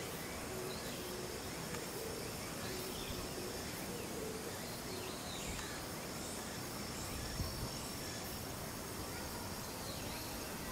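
Outdoor ambience: a steady high-pitched insect trill over a constant background hiss, with a faint murmur of voices and one brief soft thump about seven seconds in.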